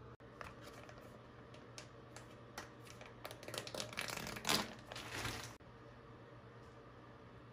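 Plastic sachet packaging being handled: a few light clicks and taps, then about two seconds of crinkling and rustling of the packet. The crinkling stops abruptly a little past halfway.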